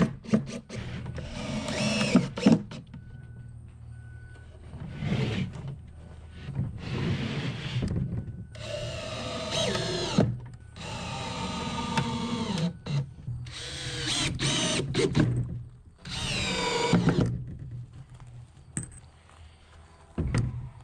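Cordless drill driving screws into a wooden box: about seven short runs of motor whine, the pitch climbing and sagging as each screw goes in and seats, with a few sharp knocks near the start.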